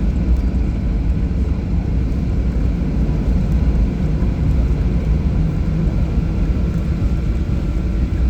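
Steady low rumble inside a Boeing 737 cabin, engine and airflow noise, with a faint steady whine above it.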